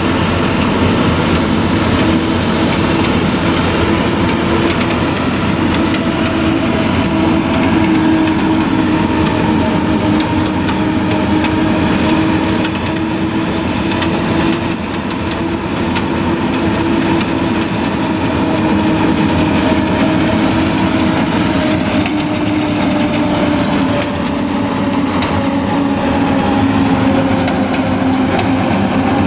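Claas Jaguar 970 forage harvester chopping maize under load, with the tractor hauling the chop trailer alongside: a loud, steady engine-and-machinery hum with a held whining tone, dipping slightly in pitch near the end.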